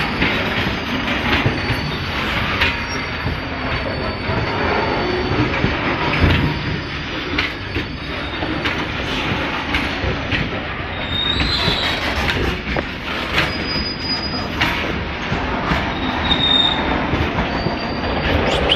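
A train passing close by on the railway track: a steady rumble of wheels on rail, with many sharp clicks and a few short, high wheel squeals.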